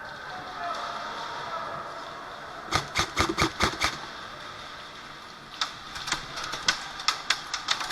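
Airsoft guns firing: a quick string of about seven sharp shots around three seconds in, then scattered shots from about five and a half seconds on.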